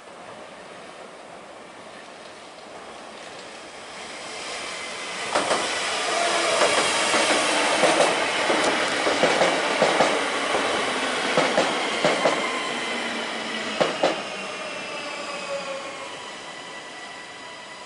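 SNCB AM 08 (Siemens Desiro) electric multiple unit running past close by as it slows into the station: wheels clicking irregularly over rail joints and points, with an electric motor whine falling in pitch as it loses speed. The train grows louder from about four seconds in, is loudest in the middle, and fades with a thin high squeal near the end.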